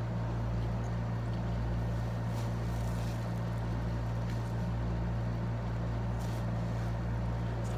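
Window-type air conditioner running with a steady low hum and drone, with a few faint clicks over it.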